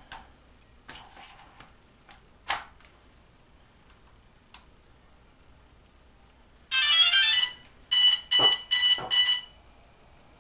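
Small clicks and taps of hands on a DJI Phantom Vision quadcopter, then its power-on chime: a quick run of stepped beeps followed by four short beeps, with two dull knocks among the last beeps.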